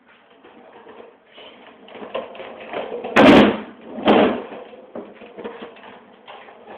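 Skateboard wheels rolling on a concrete floor, then two loud clattering bangs about a second apart as the board hits the ramp and comes back down.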